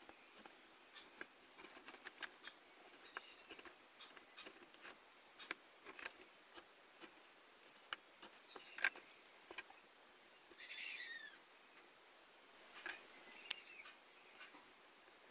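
Utility knife cutting and scoring white board, with scraps being worked loose: faint, scattered sharp clicks and ticks, and a few short high squeaky chirps, the longest about eleven seconds in.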